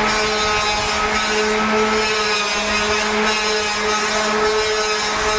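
A motor running steadily at one constant pitch, a droning hum with a higher whine above it.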